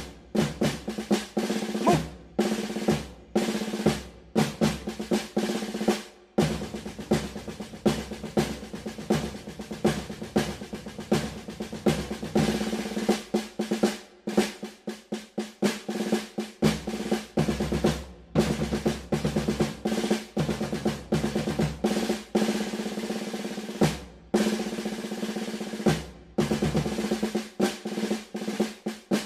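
Marching-style drum cadence: rapid snare drum rolls and hits over a steady low tone, with brief breaks every few seconds.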